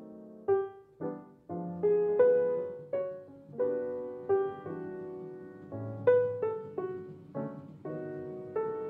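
Background piano music: a gentle melody of separate notes, each struck and fading.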